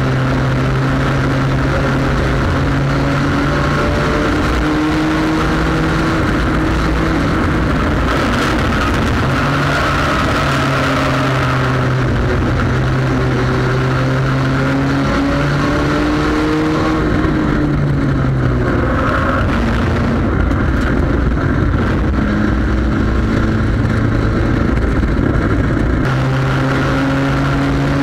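Onboard sound of a front-wheel-drive sport compact race car's engine running hard under racing load, heard from inside the cabin. The engine pitch falls and rises several times as it goes around the track.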